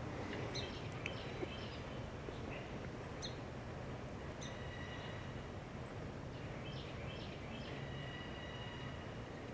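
Faint outdoor background: a low steady hum with scattered short bird chirps and a couple of brief high whistled notes.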